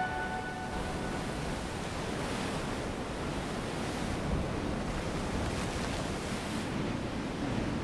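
Sea waves washing steadily, an even rushing noise with gentle swells, mixed with some wind.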